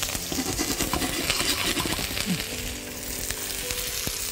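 Finely chopped onion sizzling in very hot vegetable oil in a Japanese wok, with a steady hiss and the occasional click of a spatula stirring it. The oil is kept very hot so that the onion browns quickly without softening.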